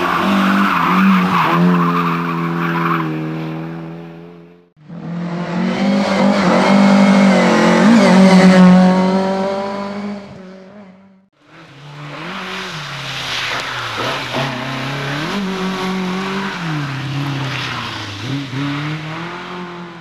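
Rally cars under hard throttle on a tarmac stage, in three separate passes: engines revving up and down through the gears, with tyre squeal. The first is a Lada saloon. Each pass dies away to near silence, about 5 and 11 seconds in, and the middle pass is the loudest.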